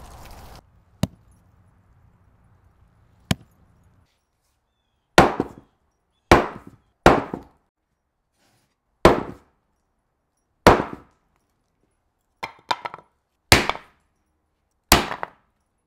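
Dry leaves rustling briefly, then two sharp clicks. After that comes a run of about nine hard wooden knocks, each dying away quickly, one to two seconds apart: a sawn tree stump being struck, then a wooden plank resting on the stump.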